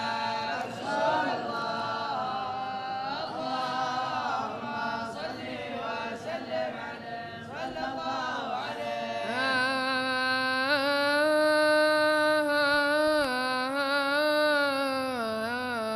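Unaccompanied male voices chanting together in slow, wavering lines. About nine seconds in, a single boy's voice takes over on a microphone, holding long ornamented notes as he opens an Arabic devotional ode (qasida).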